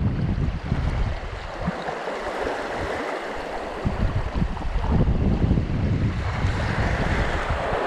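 Wind buffeting the microphone in gusts, over small waves washing across shallow reef rocks.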